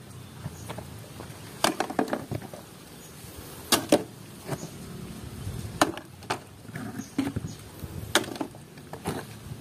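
Hard plastic toy vehicles clacking against each other and the plastic tray as they are picked up and set down: a series of sharp knocks, often two close together, every couple of seconds.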